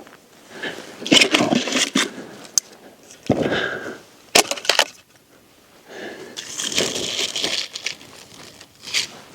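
Dry wood breaking: sticks and branches snapped and cracked in irregular bursts, with a few sharp single cracks.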